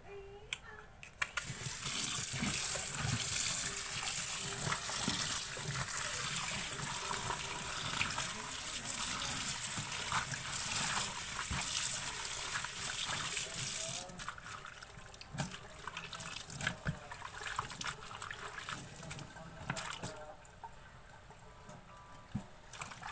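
Water running from a tap in a steady gush, shut off about fourteen seconds in, followed by lighter splashing and trickling.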